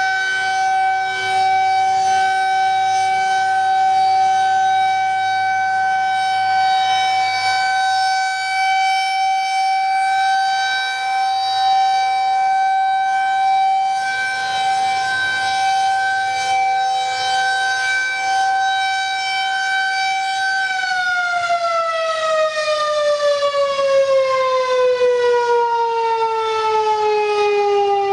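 Federal Signal 2001-130 electromechanical tornado siren sounding its weekly test. It holds one steady tone, then about two-thirds of the way through it starts winding down, its pitch falling steadily.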